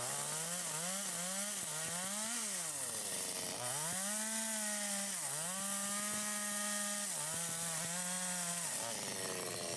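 Stihl MS 250 two-stroke chainsaw with a 25-inch bar, ripping wood lengthwise. The throttle is blipped up and down several times, then held high under load with a brief dip in pitch, and the engine falls back near the end.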